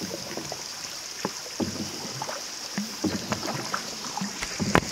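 Small tour boat being paddled along an underground cave river: scattered small knocks, drips and splashes of water over a steady hiss, growing busier near the end.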